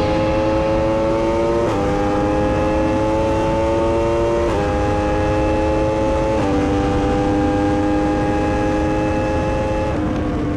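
Yamaha YZF-R1M's crossplane inline-four, fitted with an Akrapovic exhaust, at full throttle during a top-speed run: the engine note climbs through the revs with three quick upshifts, about two, four and a half and six and a half seconds in, from third up to sixth gear. In top gear the pitch creeps up only slowly, over steady wind rush.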